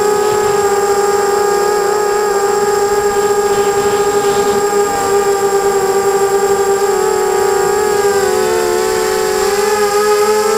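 The motors and propellers of a 250-size FPV racing quadcopter, heard from on board, whining steadily with a high, siren-like pitch. The pitch wavers up and down in the last few seconds as the throttle changes.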